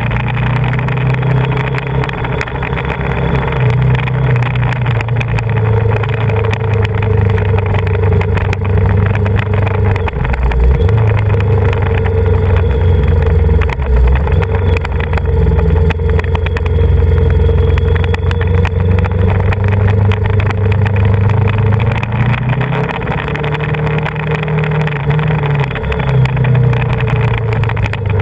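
Yamaha Vmax 1700's V4 engine running while riding, heard from a camera mounted on the bike, with wind and road noise. The engine note shifts about ten seconds in and again a few seconds before the end as the throttle changes through the bends.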